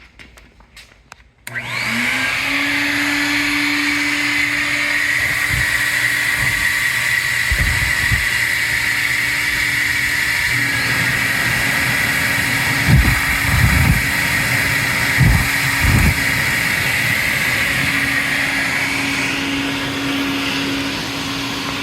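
A few clicks, then the Ruwac dual-motor concrete dust-collector vacuum switches on and runs with a loud, steady whine. A few low thumps come in the middle, and the high part of the whine eases near the end.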